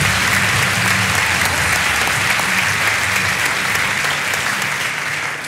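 Studio audience applauding steadily, easing off slightly near the end.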